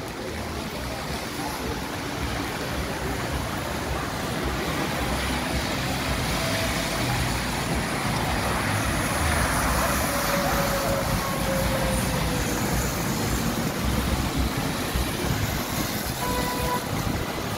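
Street traffic on a wet road: vehicles passing with tyre hiss, the noise building to its loudest about halfway through as a vehicle goes by close. Low gusts of wind rumble on the microphone.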